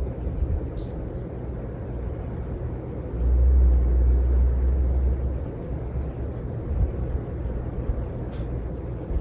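Hunter Original ceiling fan's oil-bath motor running at speed with a steady low hum, after its break-in period. A louder low rumble swells for about two seconds in the middle, and faint short high chirps come and go.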